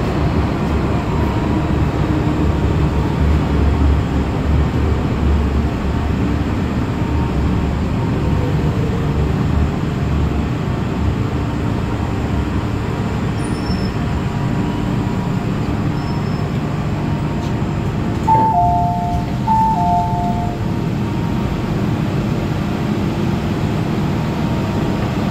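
MTR M-Train electric multiple unit running between stations: a steady rumble of motors and wheels on rail. About three quarters of the way through, a two-note falling chime sounds twice.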